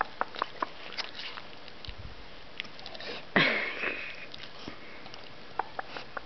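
A sleeping pet snoring and snuffling: short nasal clicks and sniffs, with one louder snoring breath a little over three seconds in.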